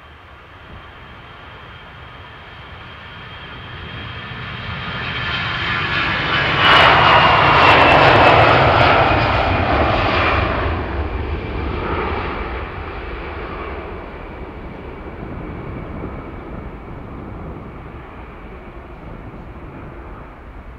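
Airbus A320-family jet airliner at takeoff power on its takeoff roll. The jet engine noise swells as it approaches and is loudest as it passes, about seven to ten seconds in, with a whine that falls in pitch. It then fades as the airliner lifts off and climbs away.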